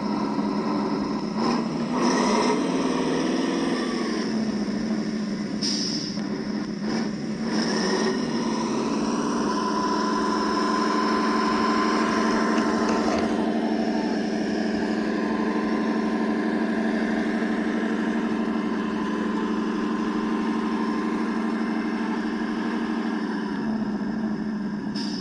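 Simulated diesel truck engine sound from the Das Mikro TBS Mini sound module of an RC scale Ural 4320, played through the model's small speakers: a steady engine note with no deep bass, whose revs shift a few times. A higher whine rises in the middle as the model's electric drivetrain pushes through snow.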